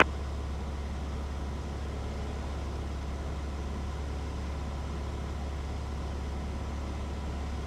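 Cessna 150's four-cylinder Continental O-200 engine running at reduced power in the landing pattern: a steady low drone with an even noise over it.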